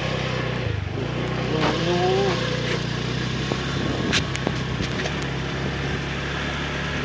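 Small motor scooter engine running steadily while being ridden, with a slight dip in pitch about a second in.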